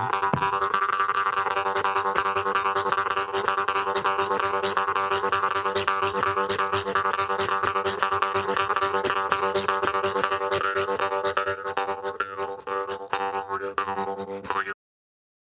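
Instrumental music: a held droning chord under a busy percussive beat, cutting off suddenly near the end.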